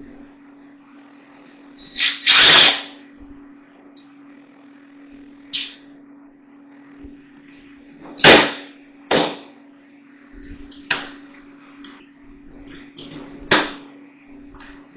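Tools and plastic parts of a Shark vacuum cleaner being worked on and handled during a teardown: a series of short, sharp knocks and clatters, about six of them loud, the loudest a little past the middle. A steady low hum runs underneath.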